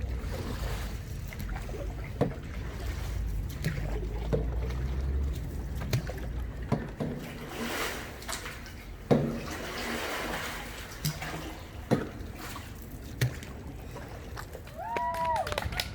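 Canoe paddle strokes dipping and splashing in the water, with a few sharp knocks of the paddle and wind rumbling on the microphone. A brief high call sounds near the end.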